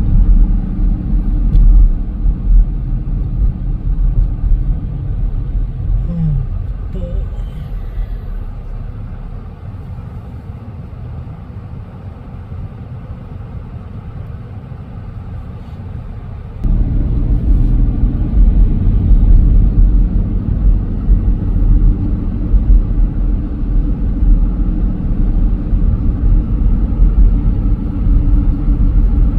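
Car driving: a steady low rumble of road and engine noise, probably heard from inside the cabin. It eases off through the middle, then comes back louder all at once about two-thirds of the way through.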